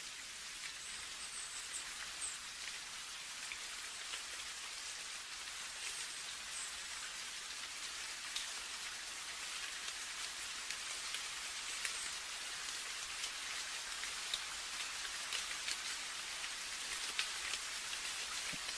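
Steady rain falling, with many separate drops ticking sharply over an even hiss, growing a little heavier toward the end.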